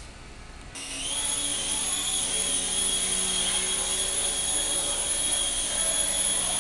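Small toy drone's electric motors and propellers spinning up suddenly about a second in, then running with a steady high whine that wavers slightly in pitch.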